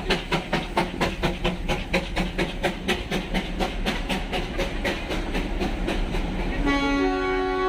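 Darjeeling Himalayan Railway steam locomotive chuffing in a quick, even beat that fades away, then a steam whistle blowing a steady note about seven seconds in.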